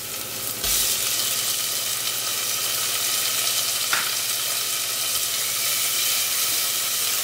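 Diced tomato added to onion and garlic frying in olive oil in a pot. The sizzle jumps louder about a second in and then runs on as a steady hiss, with a single light click near the middle.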